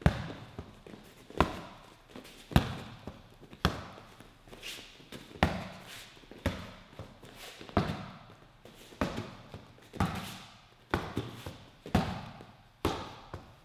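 Gloved punches landing on handheld focus mitts: sharp pad smacks about one a second, each with a short echo.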